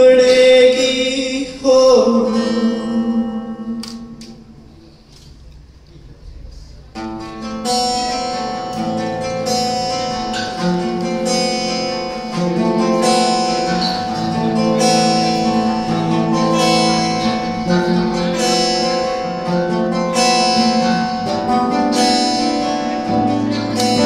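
Acoustic guitars playing a slow, picked passage. A ringing chord at the start fades almost away, then steady picking resumes about seven seconds in.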